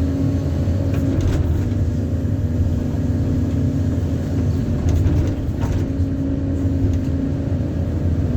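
Excavator's diesel engine running steadily under way, with a few light knocks about a second in and again around five seconds.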